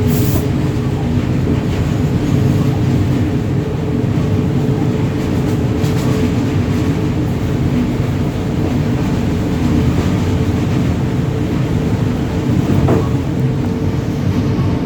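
WAG-9 three-phase electric locomotive running, a loud steady rumble with a constant hum of several steady tones.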